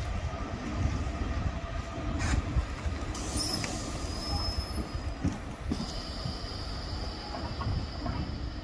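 GB Railfreight Class 66 diesel-electric locomotive rolling slowly past at close range, its EMD two-stroke V12 engine running with a low rumble. A high-pitched wheel squeal on the rails starts about three seconds in and goes on.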